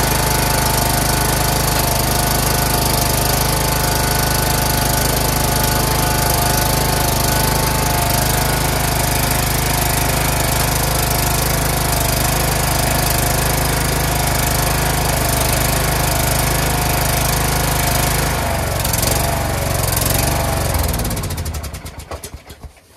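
Craftsman LT2000 lawn tractor engine running steadily. The note shifts a couple of seconds before the end, then the engine is shut off and runs down to a stop.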